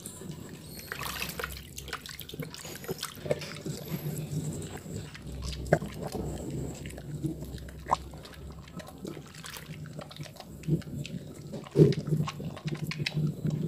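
Soaked, softened bar of Harmony melon soap squeezed and rubbed between wet hands in a basin of water, making squishy squelching and splashing sounds. Many short wet clicks run throughout, with one louder pop near the end.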